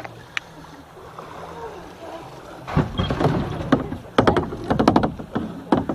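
Kayak on a moving river: a steady wash of water, then from about three seconds in a run of sharp knocks and splashes as the paddle strikes the water and bumps the plastic hull.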